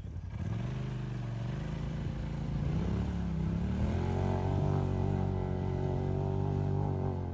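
Off-road vehicle engine working under load as it drives through a water crossing. The revs rise, sag about three and a half seconds in, then climb again and hold steady.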